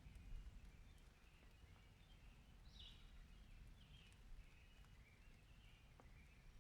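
Quiet outdoor ambience, near silence: a faint low rumble, slightly stronger near the start, with faint bird chirps scattered throughout.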